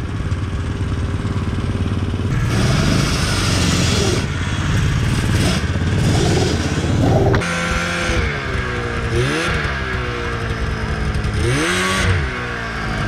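Arctic Cat snowmobile engines running. First comes a few seconds of steady engine and riding noise. Then an engine revs up and back down twice and settles to a steady run near the end.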